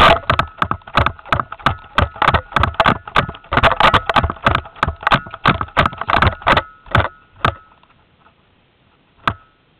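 Running footsteps with gear rattling, about three to four strides a second, fading out after about seven seconds; one more thump near the end.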